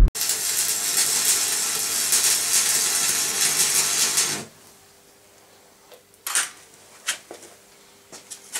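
Electric arc welding: the arc crackles and hisses steadily for about four seconds, then cuts off suddenly. A few faint taps and clicks follow.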